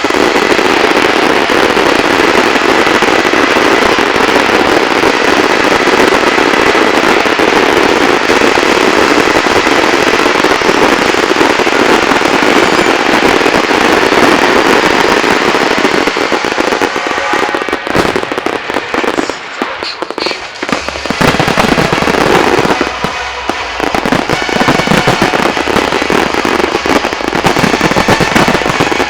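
Dense, continuous fireworks barrage: many shells bursting and crackling together into one loud, unbroken crackle, with a short thinner spell about two-thirds of the way through before it thickens again.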